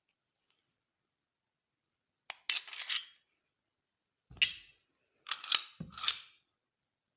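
Sharp mechanical clicks and clacks of a pistol being handled, in three short clusters: one group about two seconds in, a single clack in the middle and several more near the end.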